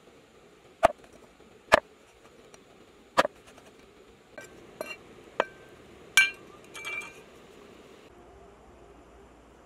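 Meat cleaver chopping eel on a round wooden chopping board: three hard chops about a second apart, then several lighter knocks. A louder knock with a ringing metallic clink comes about six seconds in.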